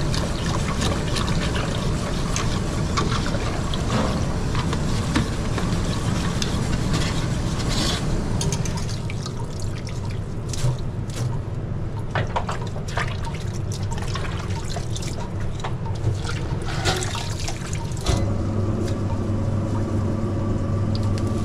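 Water running for about eight seconds, followed by scattered clicks and knocks. About eighteen seconds in, a steady low hum starts.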